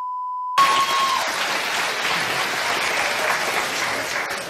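A steady TV censor bleep that cuts off about half a second in, then a studio audience applauding, dying down near the end.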